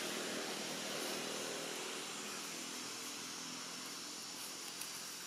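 Steady outdoor background hiss with the faint hum of a distant engine, slowly fading away.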